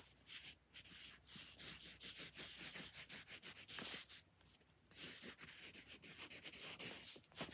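Yellow wooden pencil writing on paper: faint, quick scratching strokes, with a short pause a little past halfway.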